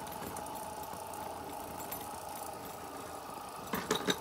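Beyblade spinning tops whirring steadily in a plastic stadium, with a faint steady tone. Near the end come a few sharp clicks as the centre top wobbles and knocks against the floor.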